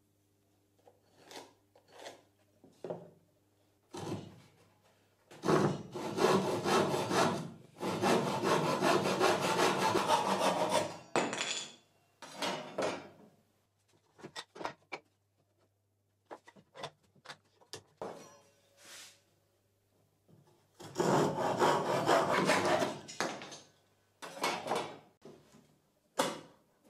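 Fine-toothed hand saw cutting oak in quick back-and-forth strokes, in two long spells and a short one, with scattered knocks and taps of tools and wood between.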